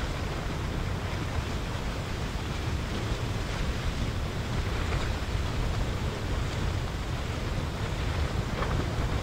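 Steady rushing rumble of a basaltic lava river flowing in an open channel, with a few faint clicks, mixed with wind buffeting the microphone.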